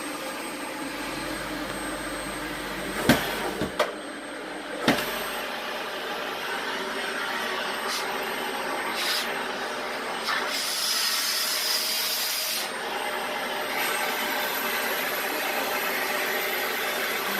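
Dyson vacuum cleaner running steadily with a thin high whine. A few sharp knocks come about three to five seconds in, and the rush of air grows louder for about two seconds near the middle.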